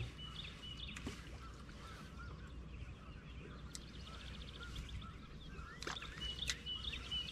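Faint outdoor ambience on a lake: distant birds calling, possibly waterfowl, with short chirps and a few brief whistled notes over a low steady background rumble. A few faint clicks occur about midway and near the end.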